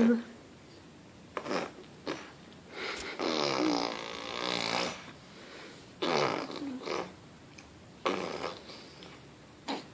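A toddler making silly noises with her voice and mouth: a string of short bursts with quiet gaps between them, and one longer drawn-out sound about three seconds in.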